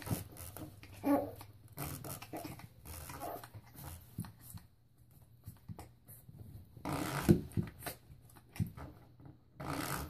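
Yorkshire terrier puppy growling and grunting in play, with scuffling and a few sharp clicks as it wrestles with a spring door stopper.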